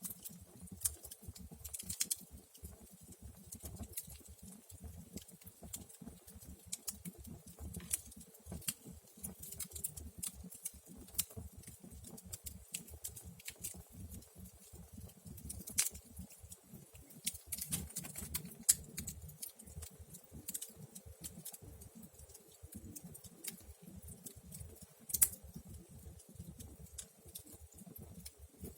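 Wood fire crackling in a fireplace: irregular snaps and pops, a few louder ones, over a low steady rumble of the flames.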